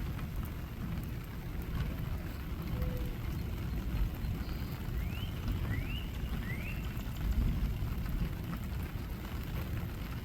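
Steady rain falling, with a low rumble underneath. Three short rising chirps sound in the middle.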